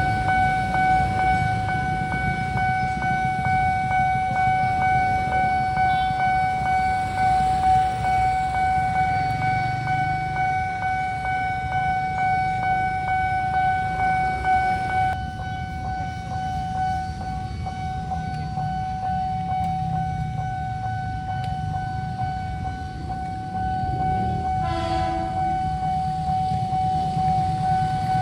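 Railway level-crossing warning siren sounding one steady high tone over the low rumble of a train going through the crossing. About 25 seconds in, a train horn gives one short blast.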